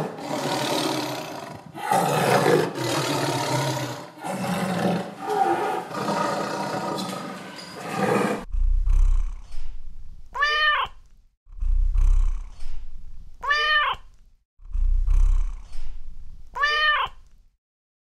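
A tiger roaring in several long, rough bouts, then a domestic cat meowing three times, each call rising and falling in pitch, about three seconds apart, with low rumbles between the meows.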